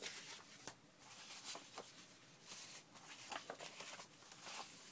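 Sheets of paper rustling and sliding against each other as they are handled and sorted, a series of brief soft rustles.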